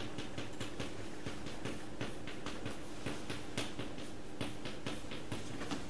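Chalk writing on a blackboard: a quick, irregular run of taps and short scratches, several a second.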